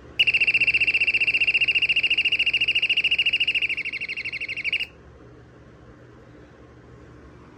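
Royal TS-1000G smoke and gas alarm's buzzer sounding: a loud, high steady tone with a rapid flutter for about four and a half seconds, then cutting off suddenly. A faint low hum remains afterwards.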